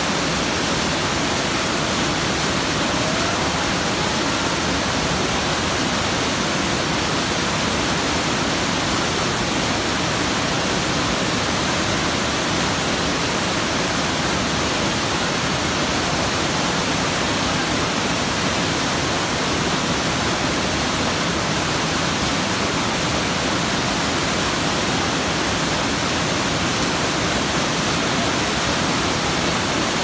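Creek waterfall cascading over boulders: a steady, loud rush of churning whitewater with no change in level.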